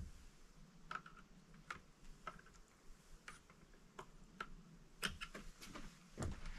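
Scattered light metallic clicks and ticks, irregular and roughly one every half second, as the chain tension on a Supmix 62 cc chainsaw's bar is adjusted and the chain snugged up.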